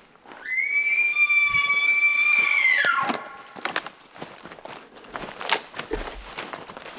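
Bull elk bugling: a rising whistle held high and steady for about two seconds, then sliding sharply down in pitch about three seconds in. Footsteps rustling through brush and dead branches follow.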